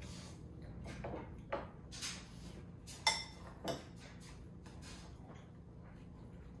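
Eating utensils clinking against bowls and plates at a meal: a handful of short light clinks in the first four seconds, the sharpest about three seconds in, then only faint ticks.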